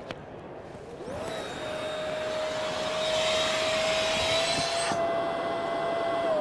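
The electric fan of an Osprey Soelden Pro's Alpride avalanche airbag system spins up with a rising whine about a second in, then runs at a steady high pitch under a loud rush of air as the airbag inflates. The rush drops away about five seconds in, while the fan whine carries on and begins to fall near the end.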